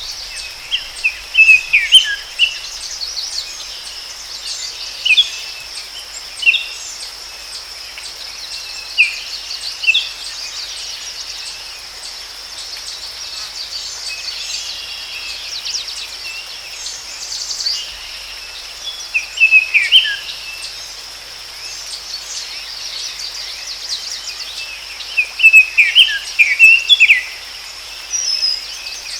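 Forest ambience: birds giving short falling chirps in scattered groups every few seconds over a steady, high-pitched insect drone.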